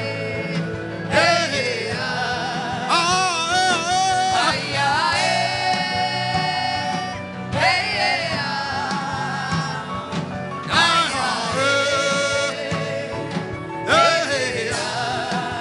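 Gospel worship music with a singer holding long, wavering notes in phrases a few seconds long, over a steady accompaniment.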